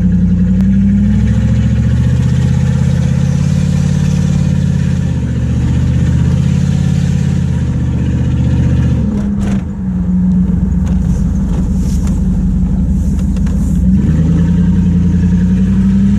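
1995 Jeep Grand Cherokee's 5.2-litre V8 running through a straight-pipe exhaust with no catalytic converter, heard from inside the cabin while driving. The deep exhaust drone rises and falls in pitch as the engine pulls and the gears change, with a brief dip about nine seconds in.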